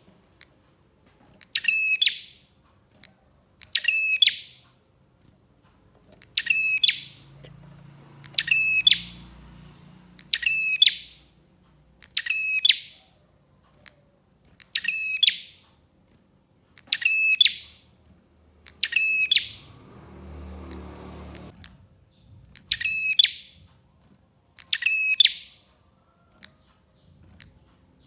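A prenjak songbird calling over and over: each call a short, rapid burst of high notes, repeated about every two seconds with a slightly longer gap near the two-thirds mark. A faint low rumble runs under the calls in that gap.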